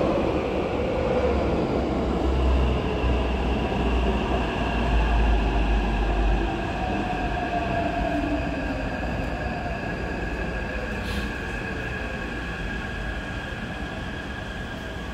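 Taipei Metro train pulling into the station and braking. A heavy rumble from the passing cars fades after about six seconds, while a motor whine falls in pitch as the train slows, over a thin steady high whine.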